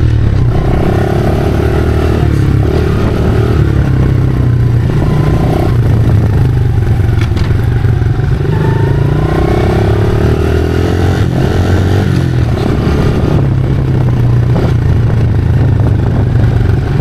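Honda CRF110F's small single-cylinder four-stroke engine running as the bike is ridden, its pitch rising and falling with the throttle, with some rattling over it.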